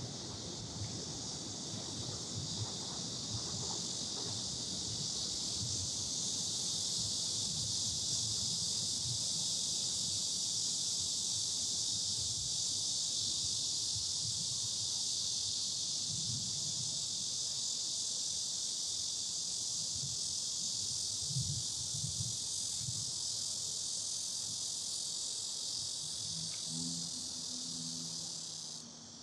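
Cicadas in the trees buzzing in a dense, steady, high-pitched chorus that cuts off suddenly near the end.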